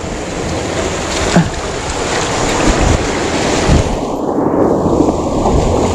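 Sea surf washing over shore rocks, with wind buffeting the microphone in low thumps.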